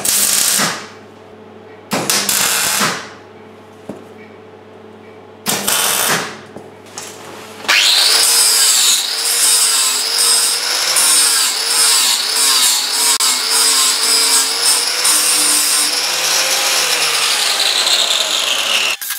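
Three short bursts of MIG welding on the steel frame, a crackling hiss each lasting under a second. Then, about eight seconds in, an angle grinder starts grinding at the steel bracket with a steady high whine for about eleven seconds, its pitch falling as it slows near the end.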